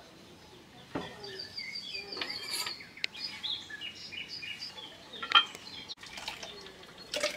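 Kitchenware clinking and knocking a few times, with birds chirping throughout.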